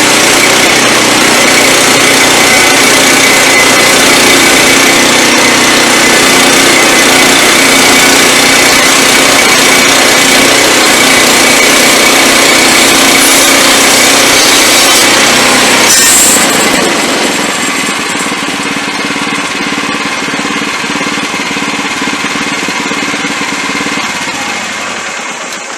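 Wood-Mizer LX25 band sawmill sawing a small log round, its engine and blade running loud and steady. About two-thirds through the noise drops to a lower steady run, then fades out near the end.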